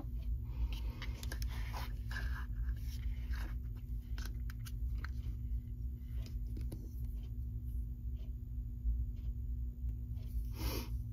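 Light handling noise of small plastic parts of an Advanced Bionics Neptune cochlear implant sound processor being picked up and turned over: scattered small clicks, taps and scrapes, busier in the first few seconds, with a short rub near the end. A steady low hum lies underneath.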